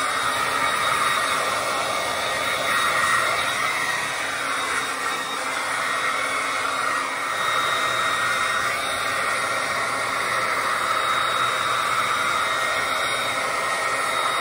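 Handheld hair dryer running steadily while it blows wet hair dry: a loud even rush of air with a thin steady whine, swelling and dipping slightly as it is moved around.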